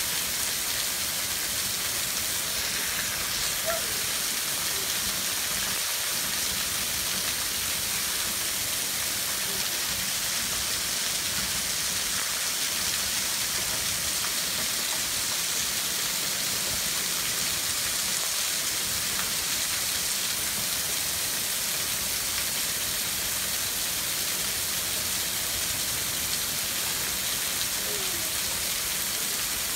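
Heavy, steady rain, with rainwater pouring in a stream off a sagging, overflowing gutter and splashing onto concrete.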